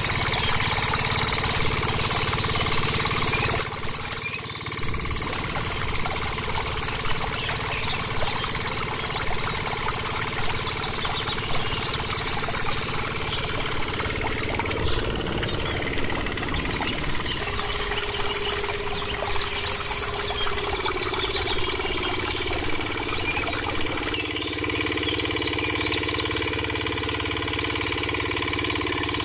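Small engine of a miniature diesel-engine water pump model running steadily with a rapid chugging knock.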